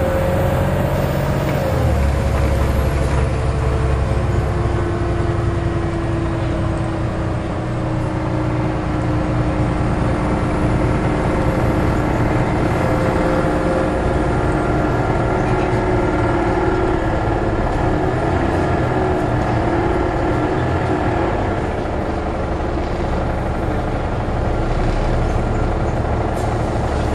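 Volvo B7LA articulated bus's engine and drivetrain running steadily while it drives, with road rumble and a whine that slowly rises and falls in pitch, heard from inside the passenger saloon.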